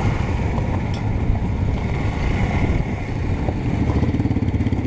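Motorcycle engine running steadily at low road speed, heard close up as a dense low rumble of rapid, even firing pulses.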